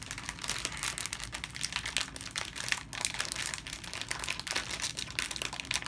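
Plastic candy wrapper crinkling and crackling as it is handled and pulled at, trying to get it open.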